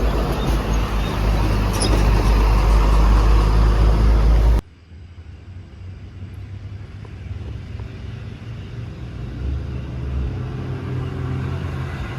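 Truck engine roaring loud under heavy load, as on a steep climb; about four and a half seconds in it cuts off suddenly to a much quieter, steady engine hum.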